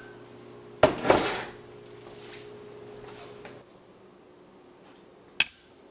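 Kitchen utensils handled at a counter: two clunks about a second in, likely a spatula against a glass measuring bowl, then a single sharp click near the end.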